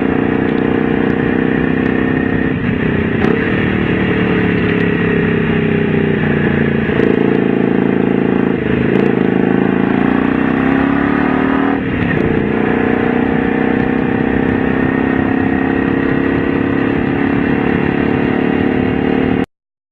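Honda V-Twin Magna 250's V-twin engine running, its pitch falling and rising several times as the revs change. It cuts off suddenly near the end.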